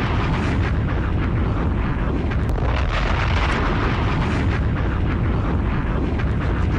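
Steady, dense rumbling noise, heaviest in the low end, with no music or voice.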